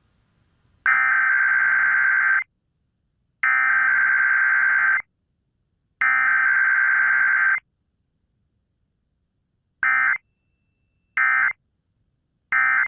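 Emergency Alert System SAME data tones heard over AM radio: three long buzzy two-tone digital bursts, the header of the alert, about a second apart. Near the end come three short bursts, the end-of-message code.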